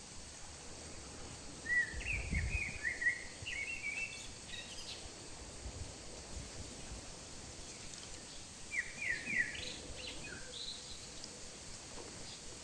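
Small birds chirping in two short bursts of quick, rapid notes, one about two seconds in and one about nine seconds in, over a steady faint outdoor hiss.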